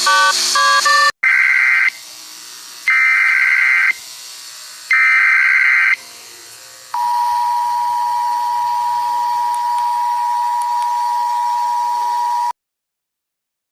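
Emergency Alert System-style alarm: a quick run of melodic beeps ends, then three one-second bursts of warbling data tones, the SAME header, each about a second apart. A steady two-tone attention signal follows for about five seconds and cuts off suddenly, leaving silence, over a faint background hiss.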